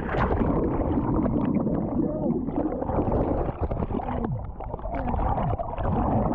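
A splash as the microphone plunges into the sea, then muffled underwater churning and bubbling of seawater.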